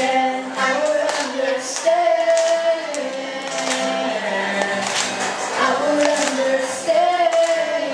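Live acoustic guitar strumming with young voices singing into microphones.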